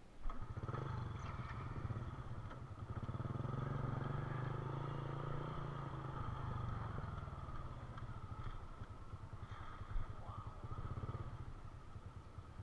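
A small engine starts up abruptly and runs steadily at an even pace, easing off slightly toward the end, with one sharp knock near the end.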